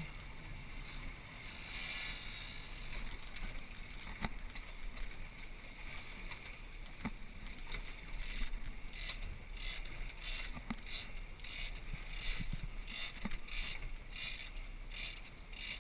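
Boat engine running under way, with water rushing past the hull and wind on the microphone. In the second half a regular high swishing pulse comes about twice a second.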